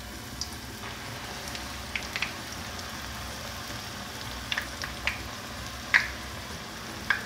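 Corn tortilla pieces frying in hot vegetable oil in a stainless steel saucepan: a steady bubbling sizzle. A metal slotted spoon clicks against the pan a few times, most sharply near the end.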